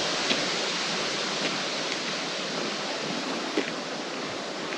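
Steady rushing of running water, such as a nearby mountain stream, fading slowly. A few faint footsteps on the dirt trail sound over it.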